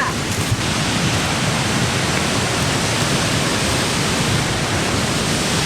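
Steady, loud rushing of the Mekong's Li Phi falls, water pouring hard through rock channels.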